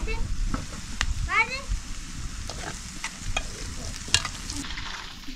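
Food sizzling in a pan as it is stirred, with several sharp clinks of the utensil against the pot. A short run of rising chirps comes about a second in.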